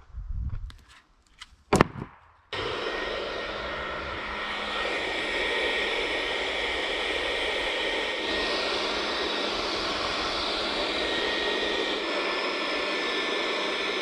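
Ryobi cordless blower running steadily: a rush of air with a thin high whine, starting suddenly about two and a half seconds in. Shortly before it there is a single sharp knock.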